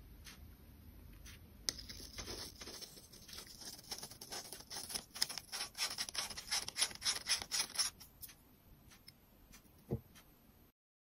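Faint handling noise from a plastic clip-on phone lens: rapid scratchy clicks and rubbing as the lens is turned on its clip mount, thickest in the middle, then a single soft knock near the end before the sound cuts off.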